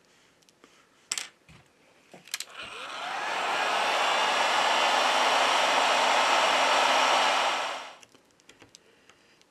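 Heat gun blowing hot air. Its fan whines up to speed about two and a half seconds in, runs steadily, then winds down and stops near the end, warming the adhesive that holds the phone's vibration motor to the middle frame. Two sharp clicks come before it starts.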